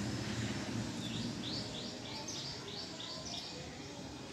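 A small bird chirping outdoors in a quick run of short high chirps, about three to four a second, over a steady background hiss.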